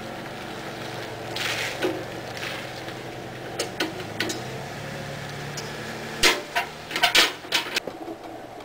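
Metal clinks and knocks of a hand wrench and steel parts as a lawn tractor's shift plate is worked into place, a few scattered clicks and then a loud cluster of knocks about six to eight seconds in, over a steady low hum.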